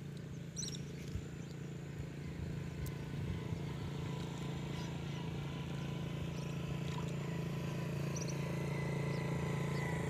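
A low, steady engine hum that grows slightly louder towards the end, with a few short, high chirps from birds or insects over it.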